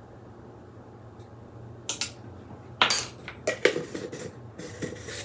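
Kitchen utensils clinking and clattering on the counter: a measuring spoon and glass jar knocking as they are handled and set down. It starts about two seconds in as a run of short clicks and knocks, a few with a brief ring.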